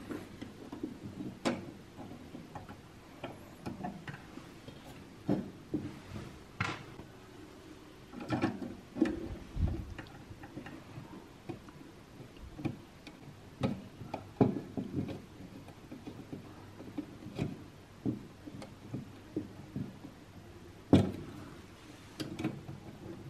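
Small irregular metallic clicks, taps and handling noises from a Feuerhand No. 201 hurricane lantern's burner and wire guide rods being fitted and hooked together, with one sharper knock near the end.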